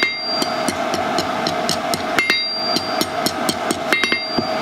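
Hand hammer striking a hot 12 mm square steel bar on an anvil in a steady run of blows, several a second, with the anvil ringing between strikes, as the bar's end is curled into a small scroll.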